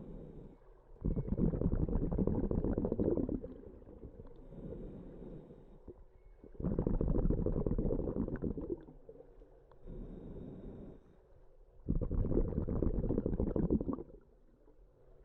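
Scuba diver breathing underwater through a regulator: three loud bubbling exhalations about five seconds apart, each lasting about two seconds, with softer hissing inhalations between them.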